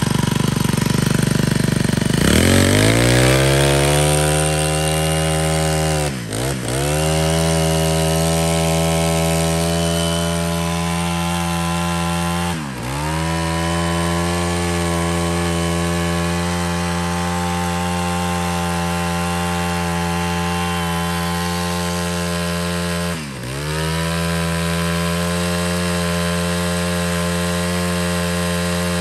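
Honda GX25 brush cutter's small four-stroke engine running at a steady speed, very smooth and quiet. Its pitch climbs and settles about two seconds in, then dips briefly and comes back up three times.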